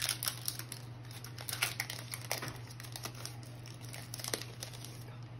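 Foil wrapper of a trading-card pack crinkling and crackling in hand as the cards are worked out of it, with small irregular clicks and rustles of the cards.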